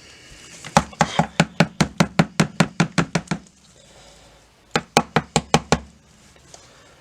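A clogged washing-machine drain filter knocked against a plastic garbage pail to shake out the hair and gunk blocking it. There is a quick run of about a dozen sharp knocks, about five a second, then after a short pause a second run of about six.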